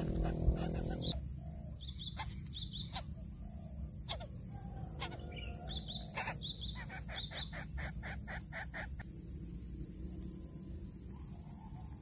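Nestling birds cheeping in short high chirps, with a quick run of repeated chirps in the middle, the begging calls of chicks gaping in the nest. A low hum stops abruptly about a second in, and a steady low background noise runs underneath.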